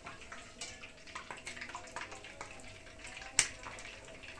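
Metal ladle clinking against a steel pot and a plate while broth is scooped and poured over bread pieces, with light splashing and one sharp clink about three and a half seconds in.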